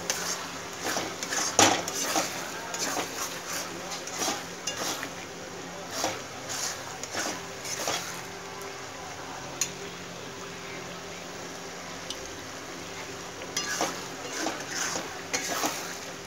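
Steel spatula scraping and knocking against a kadai (wok) as oily rice is stirred around it, over the sizzle of rice frying in coconut oil and ghee. The strokes come in bunches, with a quieter spell after the middle and a fresh bout of scraping near the end.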